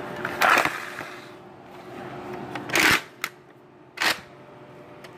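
A few short, sharp clacks from a Nerf Rival foam-ball blaster being handled and fired: one just after the start, the loudest about three seconds in with a small click right after it, and another about a second later.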